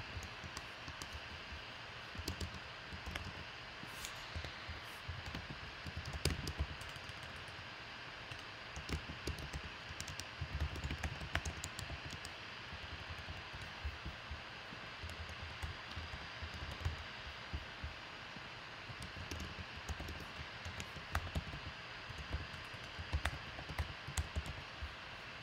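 Computer keyboard typing in irregular spurts of faint clicks and soft low knocks, over a steady hiss of room tone.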